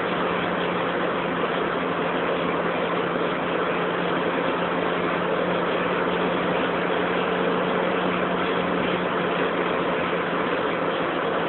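Steady cabin noise of a supercharged BMW 318ti Compact cruising at high autobahn speed: the four-cylinder engine holds a constant drone at unchanging revs under a thick rush of road and wind noise.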